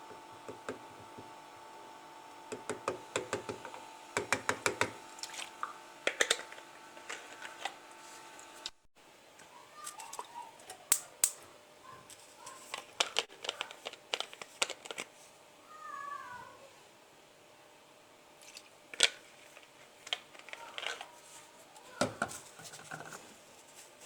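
Gas stove electronic igniter clicking in rapid trains of sparks, several clicks a second, with scattered knocks from handling. A few short squeaky glides come in the second half.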